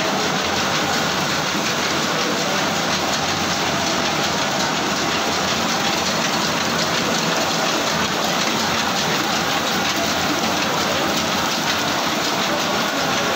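Multiend silk reeling machine running, with its water basins, making a steady, even noise that does not let up.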